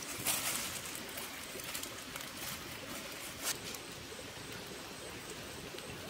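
A wood campfire crackling now and then, with a couple of sharp snaps, over outdoor forest ambience with birds calling.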